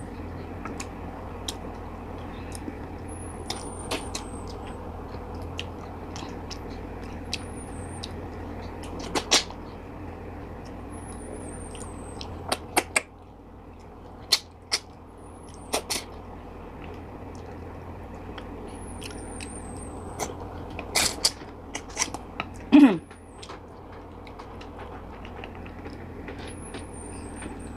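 Close-miked mukbang eating sounds: wet lip smacks, sucking and chewing clicks as steamed tilapia is eaten by hand, coming irregularly over a steady low hum. About three-quarters of the way in there is a louder burst of smacks with a short falling tone, and faint high chirps recur every few seconds.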